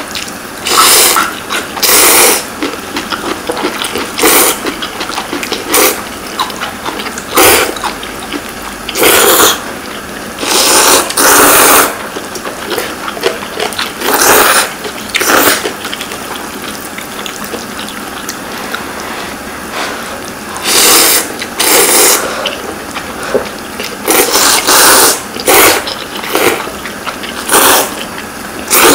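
Two people slurping Shin Ramyun instant noodles close to the microphone: repeated loud wet slurps, each under a second, with a quieter pause in the middle.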